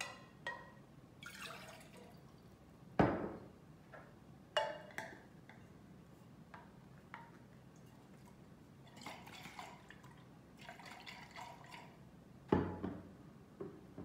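Water poured from a glass jar into a stainless steel travel mug, which is filled for a leak test, followed by handling of the mug and its slide lid. Several sharp knocks on the table come between these sounds, the loudest about three seconds in and again near the end.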